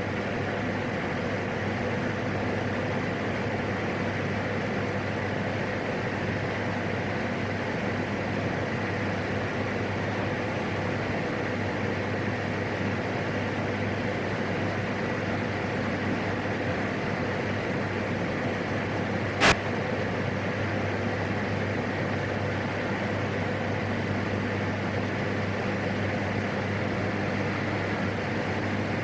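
Steady in-flight drone of a PAC 750XL's single turboprop engine and propeller, heard inside the cockpit, with one sharp click about two-thirds of the way through.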